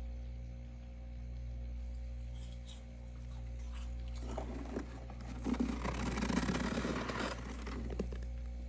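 Gloved hand scraping and crunching through thick, loose freezer frost, a rough crackling from about four seconds in, loudest between five and seven seconds, over a steady low hum.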